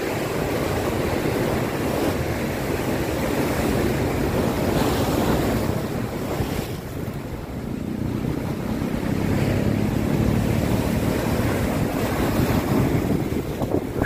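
Rough sea breaking in heavy surf over rocks, a dense rushing of foam that swells and eases as each wave comes in, with wind on the microphone.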